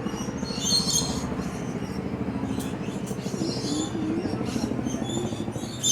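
Aviary birds chirping and calling in short repeated bursts over a steady low murmur of background noise.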